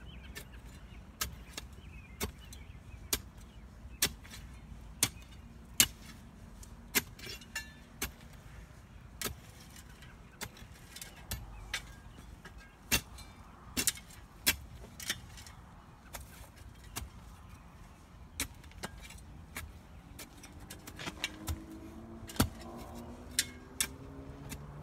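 A hand digging tool striking into soil and roots, sharp blows about once a second, some in quick pairs, as roots are chopped out. Near the end an engine rises in pitch in the background.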